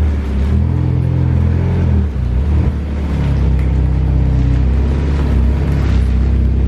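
Mitsubishi Lancer Evolution X's turbocharged 2.0-litre four-cylinder engine running at low revs as the car creeps slowly forward, its drone rising and falling a little with the throttle.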